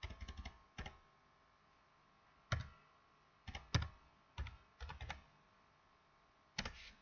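Typing on a computer keyboard: short, irregular clusters of key clicks with pauses of up to a second or two between them.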